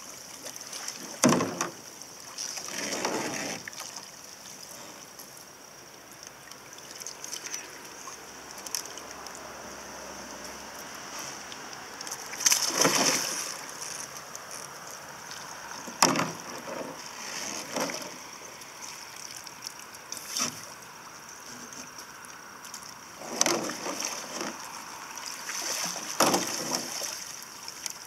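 Water splashing and sloshing around a sea kayak as it is rolled over and back up again and again, with the sweep of a narrow wooden paddle. The splashes come in separate bursts a few seconds apart, with gentle lapping between them.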